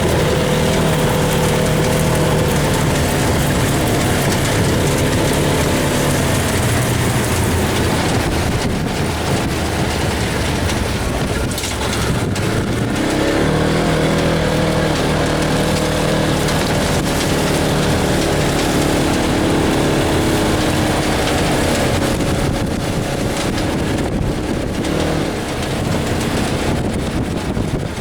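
Polaris RZR side-by-side engine running under way over a steady rush of noise. Its pitch eases off about twelve seconds in, then picks up again.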